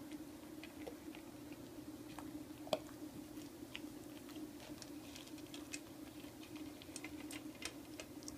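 Great Pyrenees puppy eating dry kibble from a stainless steel bowl: faint crunching, and irregular clicks of kibble and teeth against the metal. One clink nearly three seconds in is louder than the rest. A steady low hum sits underneath.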